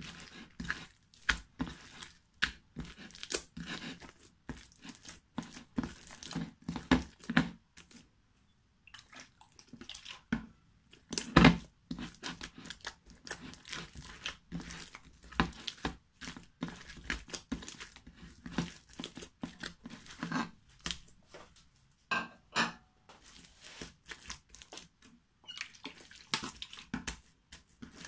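Hands kneading and squeezing sticky foam slime, a continuous run of wet crackles, squelches and small pops as it is pressed and pulled apart. There is one louder pop near the middle and a short lull just before it.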